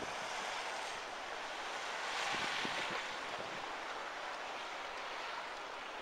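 Blizzard wind blowing steadily, swelling into a stronger gust about two seconds in.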